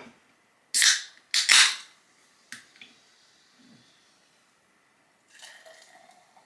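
Aluminium can of carbonated hard seltzer cracked open by its pull tab: two sharp pops, each with a short hiss, about half a second apart, then a light click.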